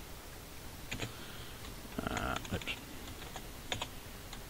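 Typing on a computer keyboard: scattered individual keystrokes entering a line of code.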